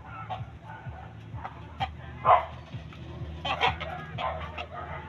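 Two shamo gamecocks fighting: short scuffling and flapping sounds with clucking rooster calls, the loudest burst about two seconds in.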